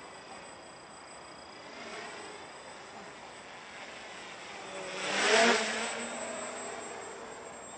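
Walkera Hoten-X quadcopter's rotors buzzing as it flies in close past the microphone, swelling to a loud peak a little past halfway and then fading away.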